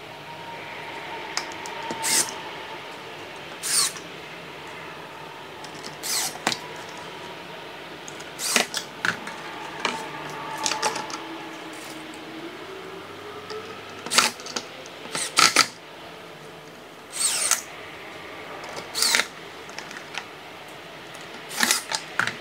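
Cordless drill driving wood screws through metal folding-leg brackets into a wooden table apron, in short runs whose motor whine rises and falls. About a dozen sharp clicks and knocks come between the runs.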